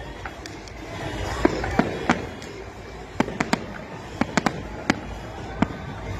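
Aerial fireworks display: shells bursting in an irregular run of sharp bangs, about a dozen, some coming in quick clusters.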